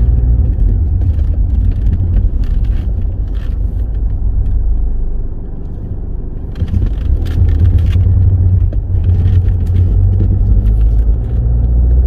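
Car driving slowly, heard from inside the cabin: a steady low rumble of engine and tyres on the road, easing off briefly about halfway through and then picking up again.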